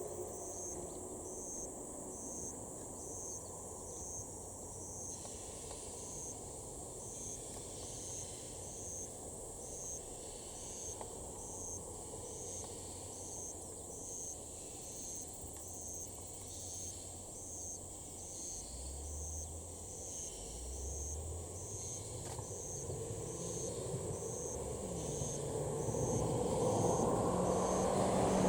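An insect chirps in an evenly repeated high pulse about once a second over quiet outdoor hiss. A low rumble builds and grows louder over the last several seconds.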